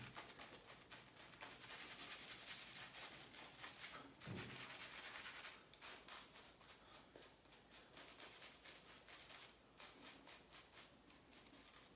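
Faint, rapid bristly scrubbing of a shaving brush working lather into the stubble and beard on a face, with a soft low bump about four seconds in.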